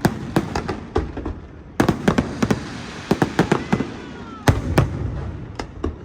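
Aerial fireworks bursting in quick, irregular succession, with many sharp bangs and one loudest bang about four and a half seconds in. Around the middle, a few faint whistles glide down in pitch among the bursts.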